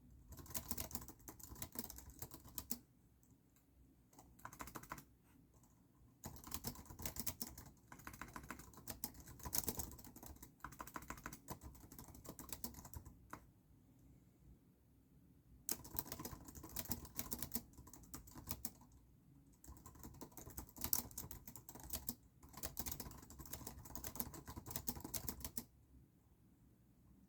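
Typing on a computer keyboard: runs of rapid key clicks lasting a few seconds each, with short pauses between them.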